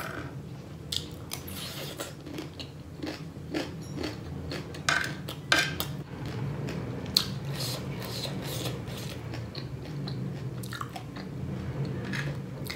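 Close-up crunchy chewing of chatpatey, the spicy Nepali puffed-rice snack mix: irregular crisp crackles as it is bitten and chewed, over a low steady hum.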